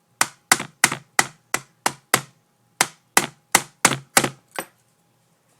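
A small hammer tapping on a screwdriver used as a punch, driving out the slide pin of an Umarex Beretta PX4 Storm CO2 pistol: about thirteen sharp metallic taps, roughly three a second, with a short pause midway. The pin is starting to move.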